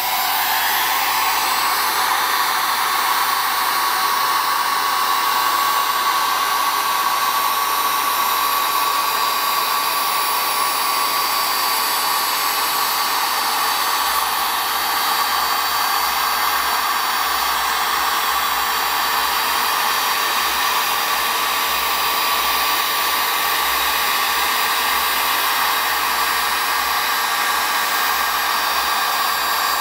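Heat gun on its high setting running steadily: a loud, even rush of hot air with a steady whine.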